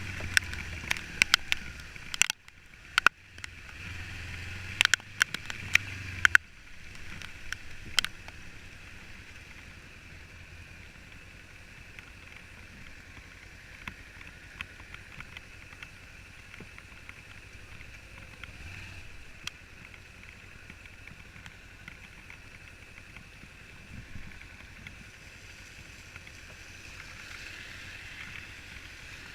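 Muffled, steady rushing wind and road noise, with a run of sharp clicks and knocks over the first six seconds that then gives way to an even hiss.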